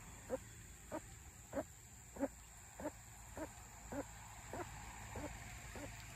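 An animal calling over and over at an even pace, short pitched notes about every 0.6 s, ten in all, faint against a steady background hum.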